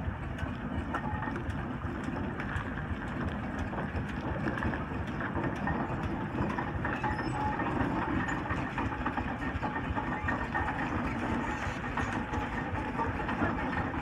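1904 Fowler 13-ton steam road locomotive on the move, its engine and gearing making a steady, dense clatter of rapid clanks over a continuous rumble.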